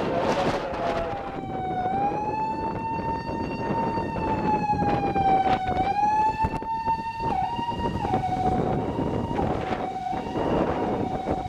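Electronic siren of a first-generation Toyota Himedic ambulance on an emergency run. Its tone glides slowly up and down, then switches between a high and a low note over the noise of road traffic.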